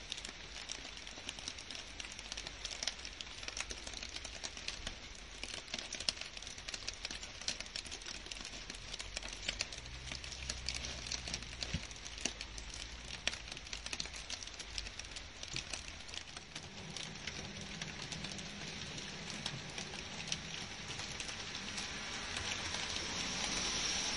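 Steady rain falling on leaves and grass: a dense patter of many small drop ticks, growing heavier near the end.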